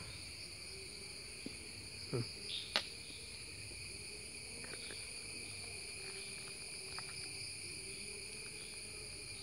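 Steady chorus of insects buzzing in several high bands, with a short sharp click about three seconds in.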